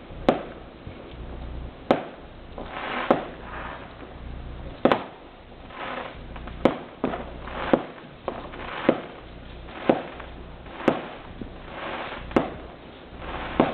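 Fireworks bangs going off around the area, about a dozen sharp reports at uneven intervals of roughly a second, some with a short echoing tail.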